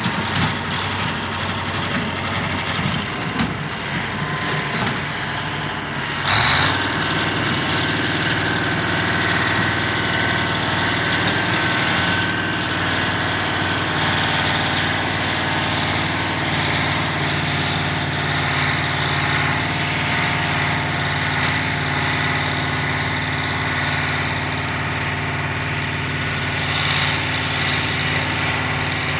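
Heavy machine's engine running steadily, with a sudden loud burst about six seconds in, after which it settles into an even drone.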